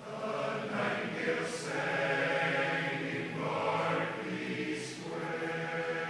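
Large men's barbershop chorus singing a cappella in close harmony, coming in loud at the start and holding sustained chords, with sibilant consonants cutting through twice.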